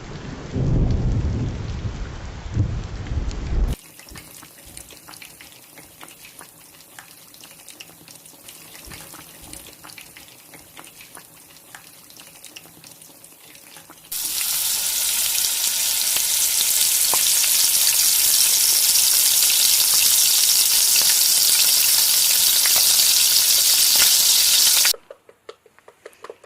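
A low rumble of thunder in the first few seconds, then faint crackling. About fourteen seconds in, a loud, steady sizzle of food frying in a cooking pot starts and runs for about ten seconds before cutting off suddenly.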